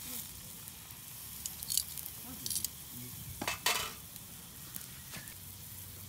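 Skewered pork belly sizzling over charcoal on a small grill grate, with a steady hiss and several sharp spitting pops, the loudest a little after three and a half seconds in, as melting fat bubbles and drips onto the coals.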